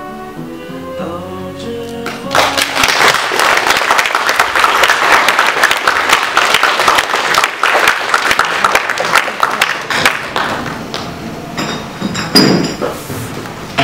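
Quiet music for the first two seconds, then an audience breaks into loud applause at the end of the play. The clapping thins out and grows quieter over the last few seconds.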